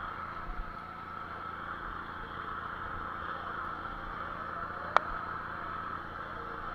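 Small fishing boat's engine running steadily, with one sharp click about five seconds in.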